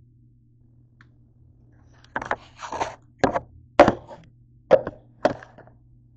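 Five sharp knocks and a short scrape, about two seconds in, from things being handled and set down on the counter close to the microphone.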